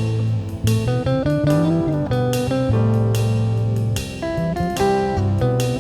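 Live band music: guitar picking a run of plucked notes over sustained low bass notes, with no singing.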